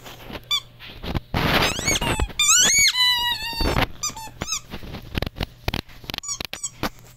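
Squeaky dog toy squeaked again and again as a Rottweiler chews it: short high-pitched squeaks in quick irregular runs, with a rough noisy burst about a second and a half in.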